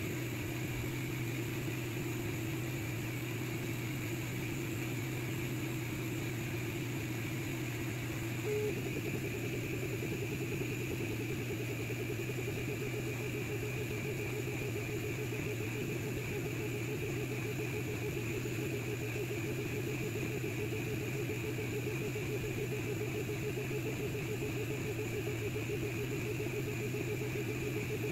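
Longer Ray 5 10-watt diode laser engraver running a job: a steady mechanical hum from its head's cooling fan and gantry stepper motors, with a brief blip about eight seconds in.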